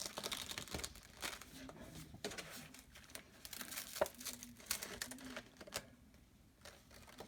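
Sticky plastic silkscreen transfer sheet crinkling and crackling softly and irregularly as it is peeled and handled; the crackles thin out near the end.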